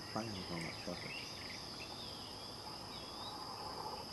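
Steady high-pitched drone of insects, with small birds chirping faintly in the background: woodland ambience.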